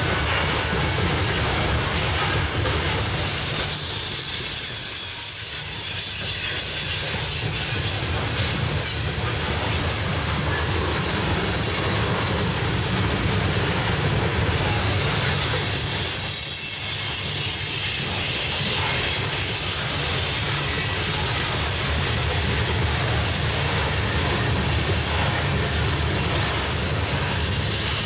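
Loaded coal hopper cars rolling past steadily: steel wheels rumbling and clacking over the rail joints, with a thin high-pitched wheel squeal running over it.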